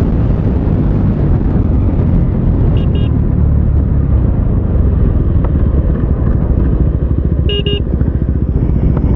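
KTM Duke 390's single-cylinder engine running through a loud SC-Project aftermarket exhaust, with wind rush, as the bike slows after a top-speed run. A horn beeps briefly twice, about 3 seconds in and near the end.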